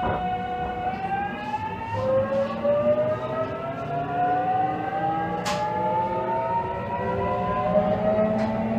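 JR Kyushu 813 series electric train (KuMoHa 813-218) pulling away, its Toshiba GTO VVVF inverter whining in several tones that step and then rise steadily in pitch as the train accelerates. A single sharp click sounds about five and a half seconds in.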